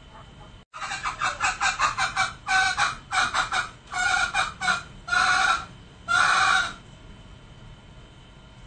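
Male green junglefowl calling. After a brief cut-out, a quick run of short notes speeds along, then breaks into clusters, and ends on two longer, drawn-out notes about two-thirds of the way through.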